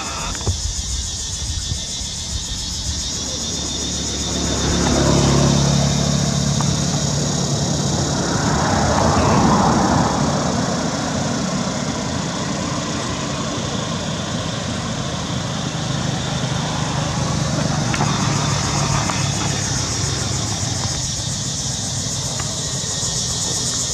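Motor vehicles passing on a road, an engine sound swelling about four seconds in and again around nine to ten seconds, then going on more softly.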